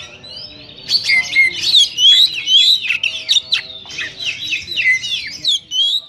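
Oriental magpie-robin singing a rapid, varied run of clear whistles and chattering notes. It is softer for the first second, then sings continuously before pausing briefly near the end.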